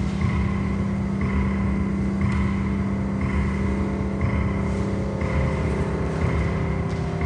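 Ambient drone music: a steady low pitched hum with overtones, under a higher tone that comes back about once a second.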